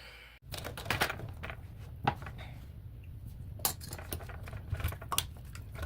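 Irregular light clinks and knocks of small hard objects being handled, over a low steady hum.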